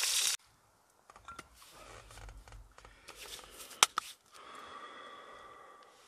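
Food frying and sizzling in a pan cuts off abruptly right at the start. After it come faint, light handling noises and two sharp clicks about four seconds in, then a faint steady hiss near the end.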